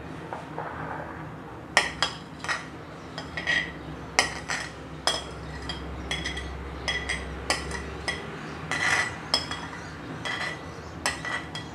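Steel spoon scraping and tapping against a ceramic plate, a run of sharp, irregular clinks with a short ring, as grated, set agar-agar (china grass) is pushed off the plate. The clinks begin about two seconds in.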